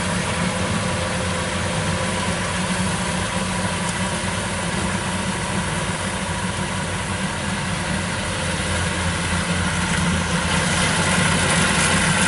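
Engine of a tracked rice-hauling cart running steadily as the cart drives along, growing louder near the end as it comes closer.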